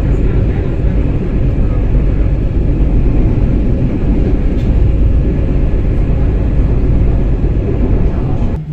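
Tram running at speed along ballasted track: a loud, steady, heavy rumble of wheels on rails, heard from inside the car. Near the end it cuts suddenly to a quieter, steady low hum.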